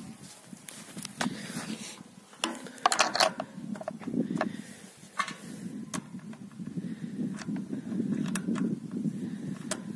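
Gloved hands unscrewing the wing nut and lifting the metal cap off a tiller engine's oil-bath air filter housing: scattered clicks and light scrapes of metal on plastic over a low rumbling rustle.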